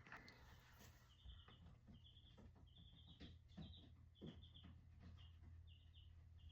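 Faint: a small bird chirping over and over, short high calls about twice a second, with a few faint taps underneath.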